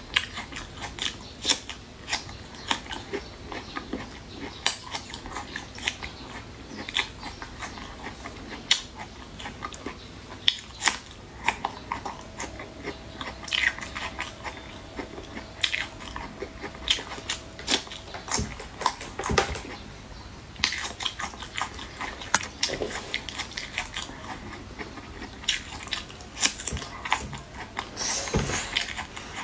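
Close-up biting and chewing of chewy braised skin strips: irregular mouth clicks and smacks, some louder bites among them.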